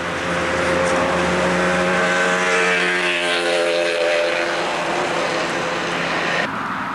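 A motor vehicle passing along the road close by, its engine note swelling and shifting in pitch as it goes past, then cutting off suddenly near the end.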